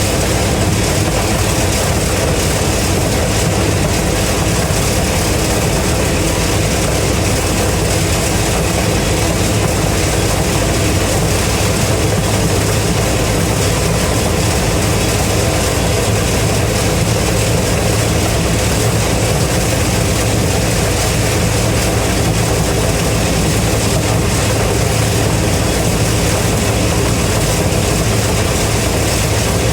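Heavy diesel engine running steadily at a constant speed, with a low hum and a broad rushing noise over it.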